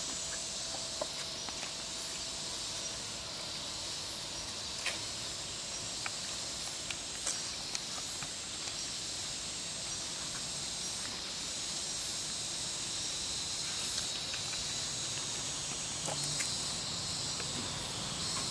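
Steady high-pitched insect chorus with scattered faint clicks and rustles.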